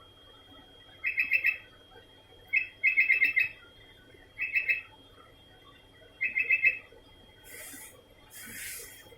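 Sooty-headed bulbul (kutilang) calling: several short bursts of quick repeated notes, a second or two apart. Near the end come two short rustling noises.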